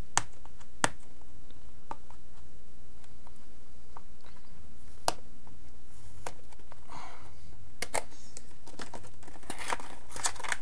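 Plastic seal being picked at and peeled off a Yu-Gi-Oh! starter deck box. Scattered sharp clicks and taps come from the handling, with brief crinkling of the wrapper about seven seconds in and again near the end, over a steady low hum.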